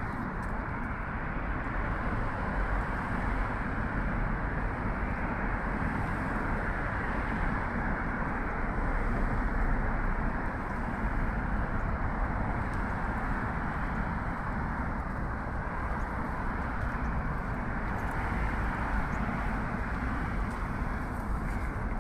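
Steady, continuous noise of road traffic, a dense hum of many vehicles with no single one standing out.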